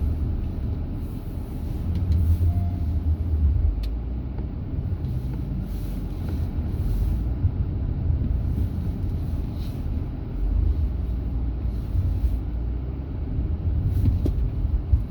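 Low, steady vehicle rumble of road traffic or a moving car, swelling and easing every few seconds.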